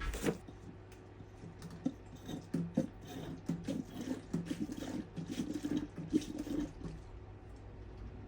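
Coolant being poured into the radiator of a 1984 Honda CR250, liquid glugging in an irregular run of short pulses that die away near the end.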